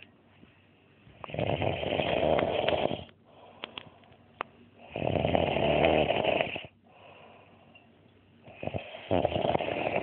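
A sleeping man snoring: three long snores, each close to two seconds, coming about every three and a half seconds.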